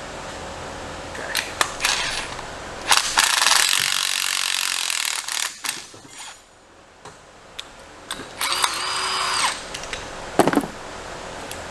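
Two spells of loud, hissing shop-tool noise, with clicks and a sharp metal knock near the end, as a gear is forced off a Polaris Ranger transmission shaft with a press.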